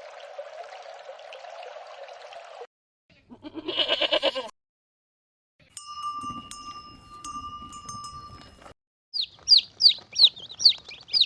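A string of separate short animal-sound clips: a steady hiss-like noise, then one short sheep bleat about four seconds in, a steady two-tone sound with a few clicks, and near the end a fast run of high, falling bird chirps.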